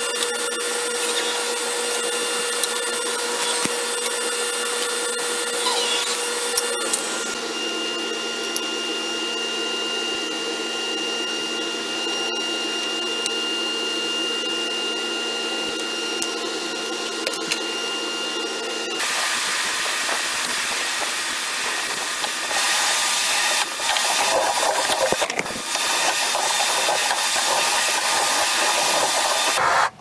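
Woodshop power tools and dust extraction running steadily, edited together from several clips. The sound changes abruptly about 7 and 19 seconds in, and becomes rougher and more uneven in the last several seconds.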